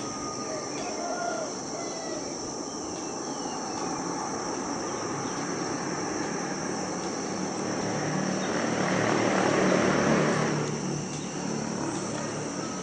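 Jet engines of a Lion Air Boeing 737 rumbling on the landing roll along a wet runway, heard from a distance. The rumble swells to its loudest about eight to ten seconds in, then eases off.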